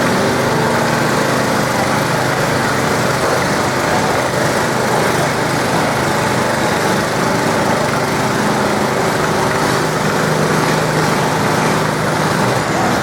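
Small garden tractor engine running steadily at high revs while pulling a weight sled.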